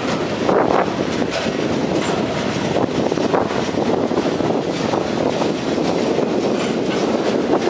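Freight train cars rolling past at close range: a steady rumble of steel wheels on the rails, with occasional knocks.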